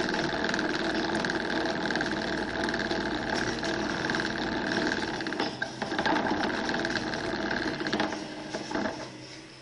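A hamster's exercise wheel spinning fast as the hamster runs in it, giving a steady, rapid rattle with a whine. It breaks off briefly about five and a half seconds in, picks up again, then dies away near the end.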